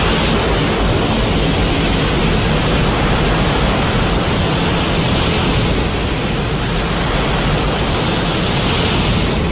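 Sound effect from the 1992–1994 Heisei Godzilla films: a loud, steady, dense rushing roar of noise with a deep rumble underneath, starting to die away near the end.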